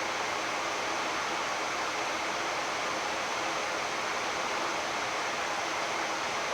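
Steady rushing hiss of a Boeing 787-10 flight deck in cruise, with a faint steady hum underneath.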